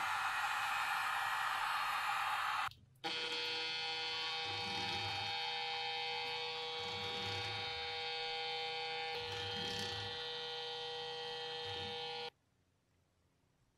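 A heat gun blowing steadily, cut off about three seconds in. Then a cordless drill runs at a steady speed with a whining hum while spinning an epoxy-coated axe handle, and stops abruptly about a second and a half before the end.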